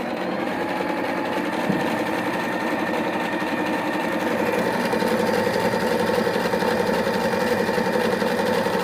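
Singer electric sewing machine running steadily at speed, its needle mechanism clattering in a fast even rhythm as it stitches a decorative pattern stitch.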